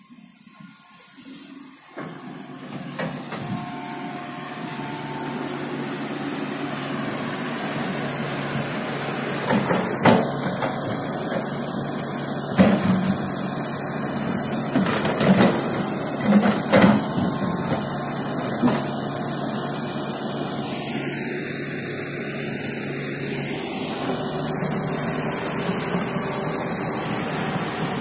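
Komatsu hydraulic excavator's diesel engine running steadily. It grows louder over the first few seconds. Several sharp knocks come from the working machine in the middle stretch.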